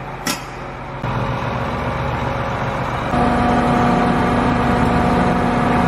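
Tractor engine idling steadily, getting louder about a second in and again about three seconds in. A single short click sounds just after the start.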